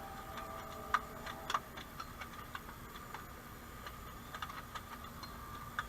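Irregular light clicks and taps, a dozen or so scattered over several seconds with the sharpest about a second in, over a faint steady high whine.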